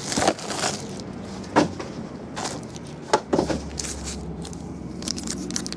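A few sharp knocks and taps from a trading card box being handled and opened on a table.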